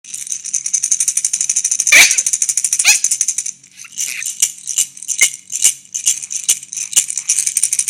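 A hand rattle shaken fast and steadily, then in slower separate shakes from about halfway, then fast again near the end. Two short, high, falling squeals cut in about two and three seconds in.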